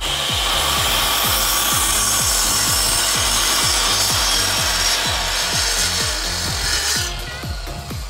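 Sliding mitre saw running and cutting through a thick square block of timber, a loud steady cutting noise that stops about seven seconds in. Backing music with a steady beat runs underneath.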